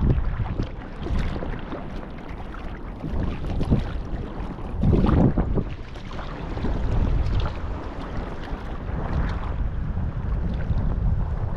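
Sea kayak under way: water splashing and sloshing with the paddle strokes, and wind buffeting the microphone. A louder splash comes about five seconds in.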